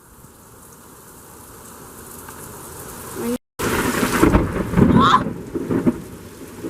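Heavy rain and wind in a thunderstorm, building slowly, then a loud rumble of thunder from about halfway through.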